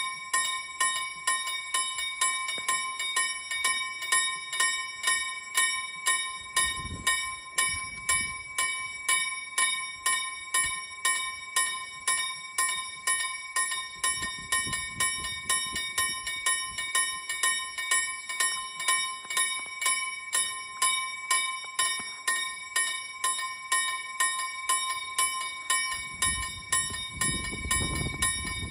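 Level-crossing warning bell ringing steadily, with evenly repeated strokes. Near the end a low rumble grows as the freight train hauled by two Dv12 diesel locomotives approaches.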